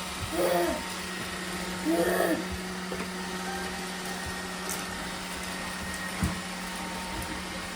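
Robot vacuum running with a steady motor hum, with a single knock a little after six seconds in.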